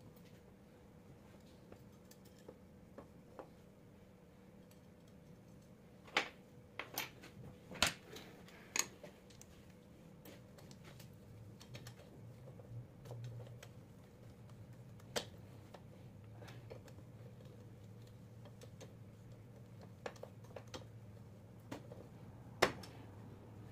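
Faint clicks and light metallic taps from alternator parts and a hand tool being handled on an aluminium alternator end housing, with a cluster of sharper knocks about a quarter of the way in and a single sharp knock near the end. A faint steady hum runs underneath.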